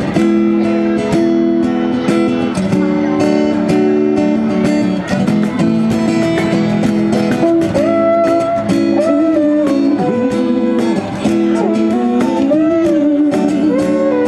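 Acoustic guitar strummed in a steady rhythm, playing a song's instrumental introduction; a wavering melody line joins about eight seconds in.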